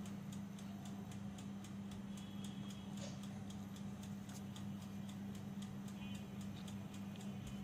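Mechanical timer of a Miyako electric oven ticking fast and evenly as it counts down while the oven preheats, over a steady low hum.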